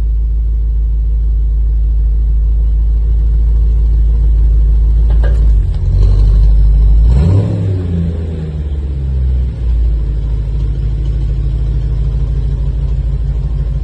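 Car engine running with a steady deep exhaust rumble as the car pulls forward, with a brief rev about seven seconds in.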